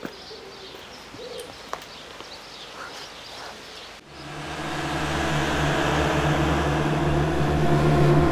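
Faint outdoor ambience with a few thin bird chirps, then about halfway through a low droning music score cuts in and slowly swells.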